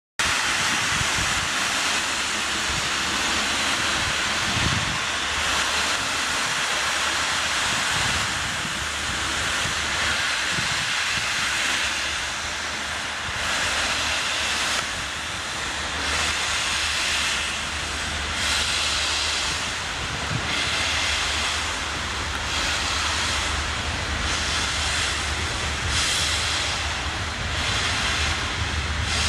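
Peppercorn A1 Pacific steam locomotive 60163 Tornado starting away with its cylinder drain cocks open: loud steady hissing of steam that swells and fades about every second or two over a low rumble.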